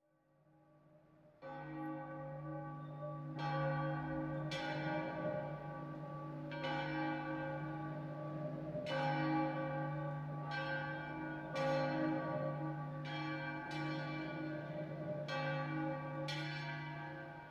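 Church bell tolling, about ten strokes at uneven gaps of one to two seconds, beginning about a second and a half in. Each stroke's long ringing hum carries on into the next.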